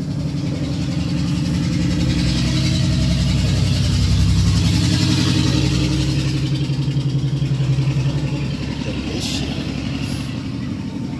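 An engine idling steadily, a low pulsing drone that swells a little in the middle and eases near the end.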